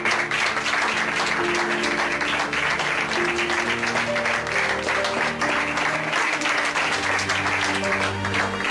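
A group of people applauding steadily, with soft background music holding sustained notes underneath.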